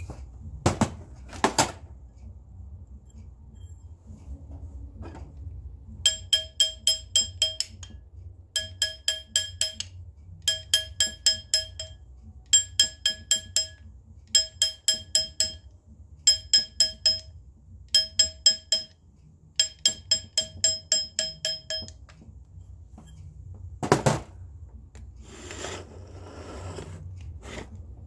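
Hammer tapping a gold ring fitted on a stainless steel ring mandrel in quick runs of about six blows a second, each blow ringing with a clear metallic pitch. The ring is being stretched up toward its target size. A few single knocks come before and after the runs.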